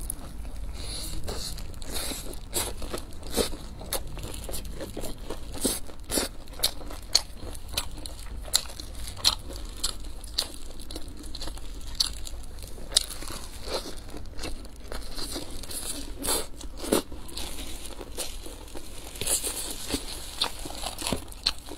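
Close-miked eating of crisp pan-fried stuffed flatbreads: crunchy bites into the fried crust and chewing, many sharp crunches in a row. Disposable plastic gloves crinkle as the food is handled, louder near the end.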